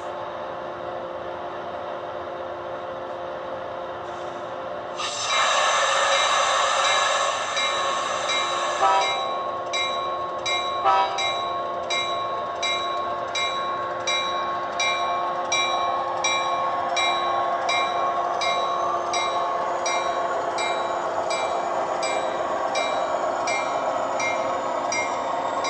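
HO scale cab car's LokSound sound decoder playing through its small speaker: a long horn blast starting about five seconds in, then the bell ringing steadily about one and a half times a second.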